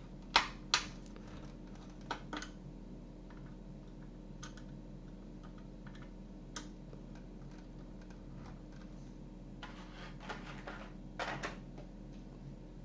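Small clicks and taps from scale-model parts and a small screwdriver being handled: two sharp clicks near the start, a few faint ticks, then two short bouts of light clattering near the end.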